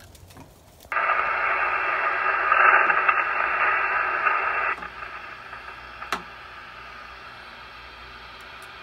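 Kenwood TS-430S HF transceiver giving out receiver static on the 40-metre band, an even hiss through its speaker. The hiss comes in loud about a second in and drops abruptly to a much quieter hiss a little before halfway, with a single click about six seconds in.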